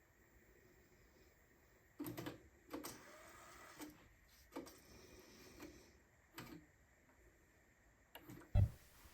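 Plastic clicks and knocks of a cassette being handled and loaded into a Nakamichi CR-7 cassette deck, about one a second, with a louder, deeper thump near the end.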